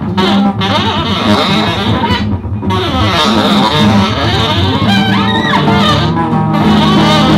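Loud live rock music led by an amplified, plucked electric guitar, with sustained low notes and pitches gliding up and down about five seconds in.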